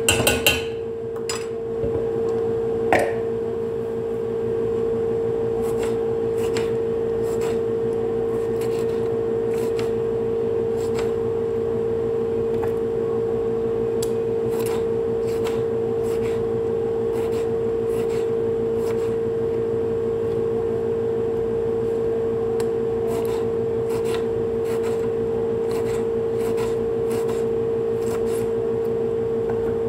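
Small kitchen knife slicing a tomato, its blade tapping and clicking irregularly on the cutting surface, over a steady appliance-like hum.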